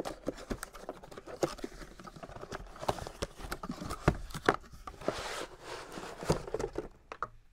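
Cardboard box being opened and unpacked by hand: irregular taps, knocks and scrapes of cardboard, with a stretch of rustling and sliding a little past the middle.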